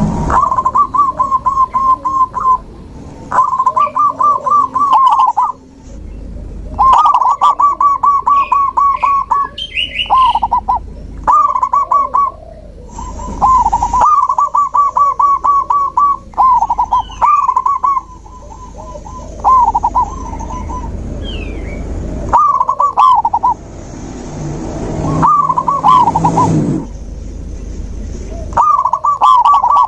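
Zebra dove (perkutut) cooing: repeated phrases of quick pulsed coos, each a second or two long with short pauses between. A few higher chirps from another bird come in here and there.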